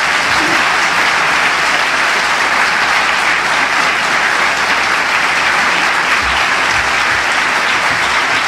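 A large audience applauding steadily, sustained clapping that fills a conference hall.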